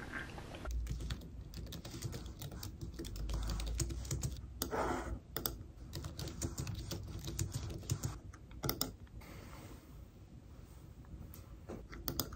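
Typing on a slim low-profile computer keyboard: a quick, irregular run of key clicks starting just under a second in.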